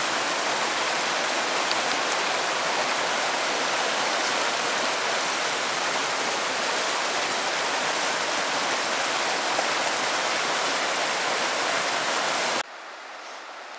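Small snowmelt creek rushing and splashing over rocks in a steady, loud rush. Near the end it cuts off suddenly to a much quieter outdoor background.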